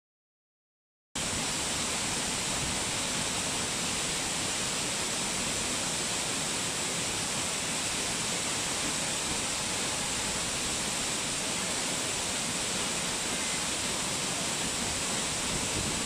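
Steady rush of falling water, a waterfall's constant roar, starting abruptly about a second in.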